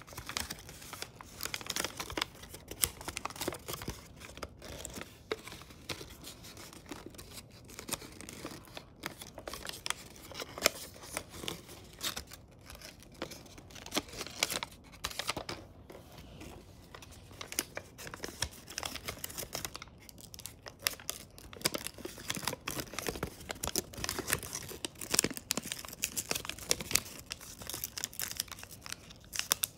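Origami paper crinkling and rustling as it is folded and creased by hand, an irregular run of small crackles throughout.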